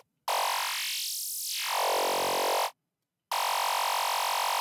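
Buzzy FM synth lead from the Albino 3 software synthesizer playing two held notes with a short silent gap between them. During the first note the tone thins out in its lower and middle range and then fills back in, and nothing sounds below the upper bass.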